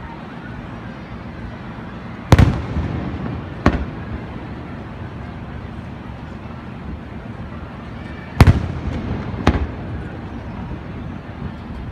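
Aerial firework shells bursting: two loud booms about six seconds apart, the first about two seconds in. Each is followed about a second later by a smaller bang and a rumbling tail, over a steady background hiss.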